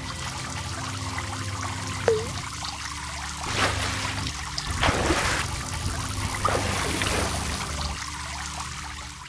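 Water sound effects, trickling and splashing, over a steady low hum, with a few louder splashes around the middle; the sound cuts off at the end.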